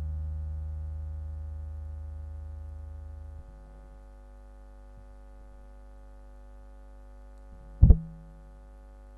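A low held synthesizer note left over from the song fades away and cuts off about three and a half seconds in, leaving a steady electrical hum. A single sudden loud thump near the end.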